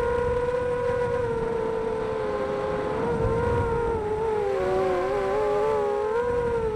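Xbird 250 racing quadcopter's electric motors and 5x3 propellers whining steadily at a high pitch. About four seconds in, the pitch wavers and splits into several close tones as the motors change speed against each other.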